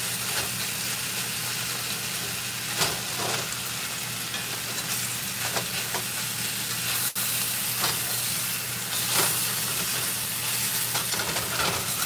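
Thin-cut steaks sizzling in hot oil in a cast-iron skillet, with the scrape and clink of a metal spatula and fork against the pan every second or two as the meat is pushed around.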